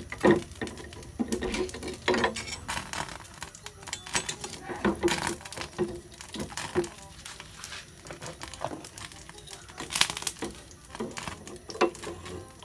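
Spatula clinking and scraping against a motorcycle cylinder block and piston in a pan of hot oil as they are turned: a run of irregular metallic knocks and clatters.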